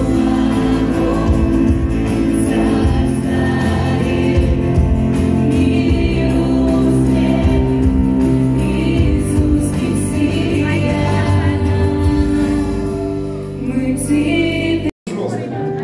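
Church worship song: a congregation sings along with live accompaniment in a large hall. The sound drops out briefly near the end.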